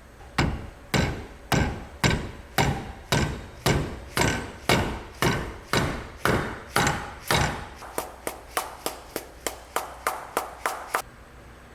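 A hammer tapping a new power steering seal into its bore: steady blows about two a second, then quicker, lighter taps about three a second for the last three seconds.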